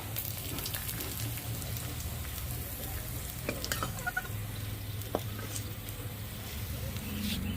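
Hot cooking oil sizzling steadily in a kadai, with a few light clicks and knocks.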